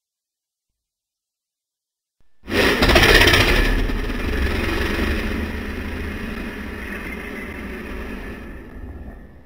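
Dragon sound effect: after a silence, a sudden loud, noisy blast with a deep rumble beneath comes in about two and a half seconds in, then slowly dies away over about seven seconds.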